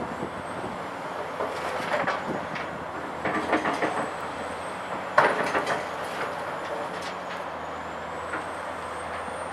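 Caterpillar 345C L UHD demolition excavator's diesel engine running under working load, with a series of clanks and knocks of rubble and steel; the sharpest and loudest knock comes about five seconds in.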